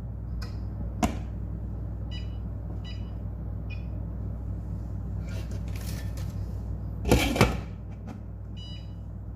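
Kitchen handling sounds as vegetables go into a cooking pan: a steady low hum underneath, a click about a second in, a few short high-pitched tones, a brief hiss, and a double clatter of cookware about seven seconds in, the loudest sound.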